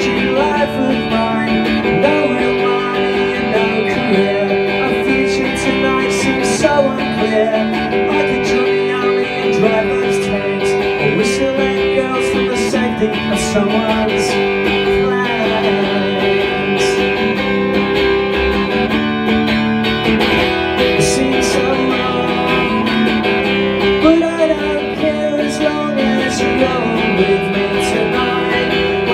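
Electric guitar strummed steadily through a song, live, its chords ringing on without a break.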